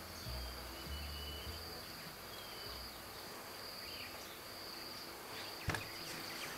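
Steady high-pitched insect drone running throughout, with a few faint short whistles and a single sharp tap a little before the end.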